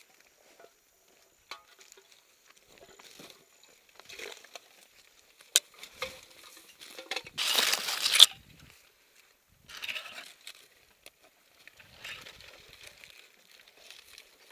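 Dry brush and grass rustling and scraping close to the camera as a climber pulls himself up a steep, overgrown slope with gloved hands, in short scattered bursts. A sharp click comes about five and a half seconds in, and the loudest scrape, about a second long, follows just after.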